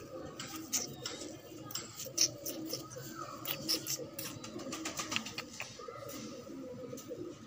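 Domestic pigeons cooing steadily, with many short sharp clicks and rustles from the feathers and hands handling a pigeon, thickest in the middle.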